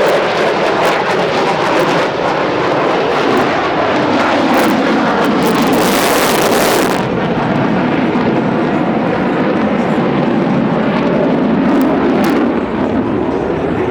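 Boeing F-15SG fighter's twin jet engines at high power during an accelerating low display pass: a loud, steady jet noise that turns brighter and hissier for a couple of seconds about midway.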